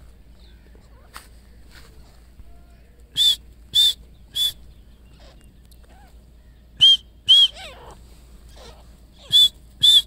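Grey francolin calling: loud, shrill whistled notes, each briefly rising and falling in pitch, in a run of three, then two pairs.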